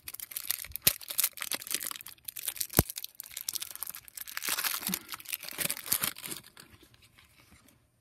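Foil Magic: The Gathering booster pack wrapper being torn open and crinkled by hand, a dense crackling with sharp ticks. It dies down about six and a half seconds in.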